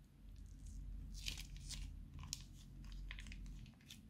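Slime being squeezed out of a plastic piping bag by hand: irregular crackling and popping from the wrung bag and the slime, thickest in the middle, over a faint low hum.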